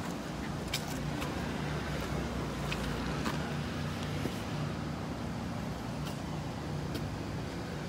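Steady low outdoor rumble, with a few faint high ticks scattered through it.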